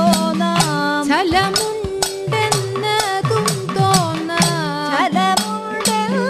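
Kathakali padam in raga Darbar: a woman's voice sings a melody with sliding ornaments over a steady beat of chengila gong and elathalam cymbal strikes, with edakka and maddalam drums.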